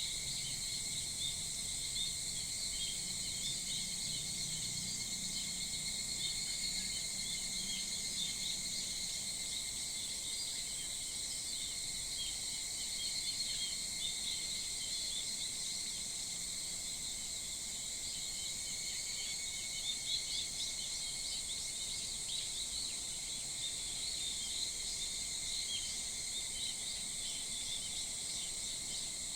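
Summer early-morning chorus of insects and wild birds: a steady high insect drone in several bands, with many short bird chirps scattered over it.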